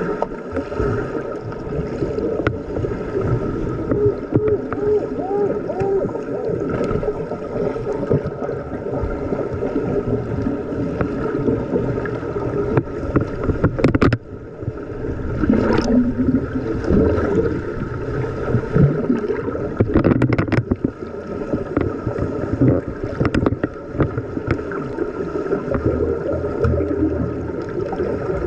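Water heard underwater in a swimming pool: a steady muffled churning of water and bubbles as finned players move and exhale around the microphone, with a few sharp clicks or knocks.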